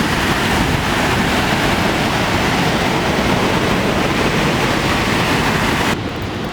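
Waterfall: a steady, loud rush of falling water that drops suddenly to a lower level near the end.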